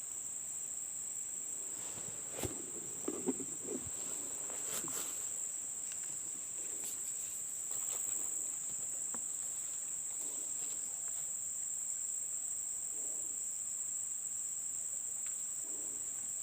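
Steady, high-pitched insect chorus, with a few faint clicks and knocks in the first few seconds.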